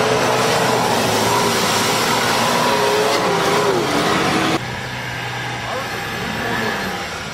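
Off-road vehicle engine revving hard under load, loud, its pitch wavering up and down. About four and a half seconds in the sound drops suddenly to a quieter engine running.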